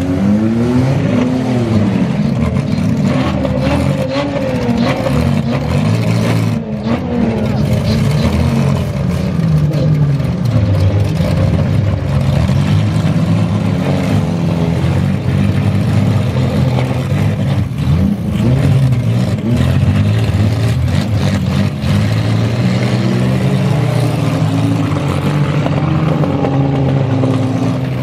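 Several demolition derby cars' engines revving hard at once, their pitches rising and falling as the cars push and spin their wheels. A few sharp crashes break through as cars ram each other.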